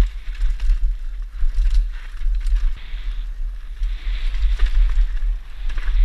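Santa Cruz V10 downhill mountain bike ridden fast over loose, dusty dirt: tyres hissing and scrabbling on the trail, with scattered knocks and rattles from the bike over bumps. Heavy wind buffeting on the helmet-camera microphone rumbles under it all.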